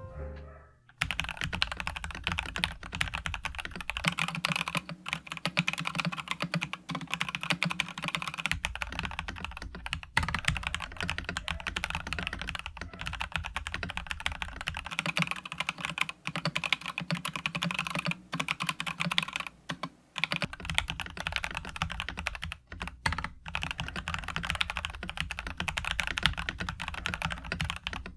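Budget custom 60% mechanical keyboard fitted with lubed Cheese Mocha switches, typed on in a fast, steady stream of keystrokes with a few brief pauses. This is a sound test of the finished build.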